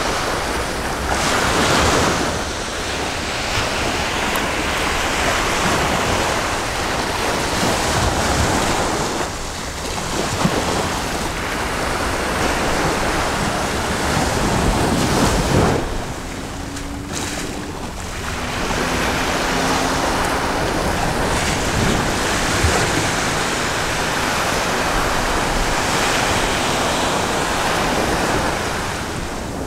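Sea waves washing onto a rocky shore, the wash swelling and easing, with wind buffeting the microphone.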